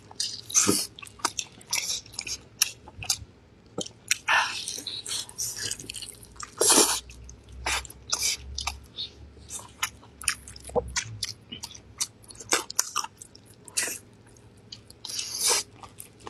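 Close-miked chewing and biting as people eat home-stewed beef ribs off the bone, many short, irregular mouth clicks and smacks.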